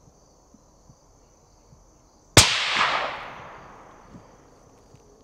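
A single suppressed rifle shot, about two and a half seconds in, from a 7 PRC-W rifle fitted with a Dead Air Nomad LTi suppressor: a sharp report followed by a tail that fades away over a second or two.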